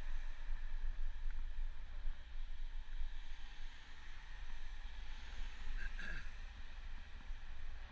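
Wind buffeting the microphone of a moving bicycle, a steady low rumble over a hiss of road noise, with a short squeak about six seconds in.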